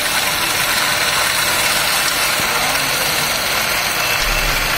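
Garlic peeling machine running with a steady, even noise while garlic cloves are fed through and peeled.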